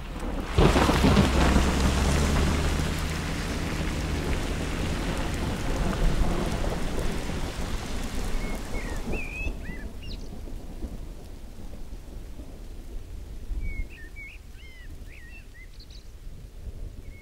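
A heavy thump about half a second in, then an ambulance's engine running as it pulls away, its tyres hissing on a wet gravel road as it fades into the distance. Birds chirp during the last several seconds.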